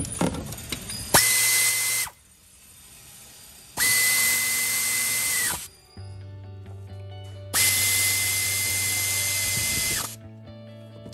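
Power drill run in three bursts, the last the longest, its motor a steady high whine that winds up and down with each trigger pull, driving in the new alternator's retaining bolts.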